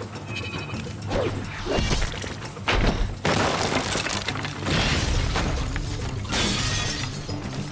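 Wooden planks and boards splintering and crashing in a series of loud impacts, over dramatic background music.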